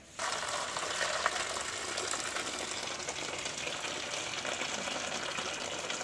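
Hot cooking water pouring in a steady stream from a tipped pot, past a metal plate held over its mouth, into a basin below: boiled manioc being drained. It starts abruptly just after the start and runs on evenly.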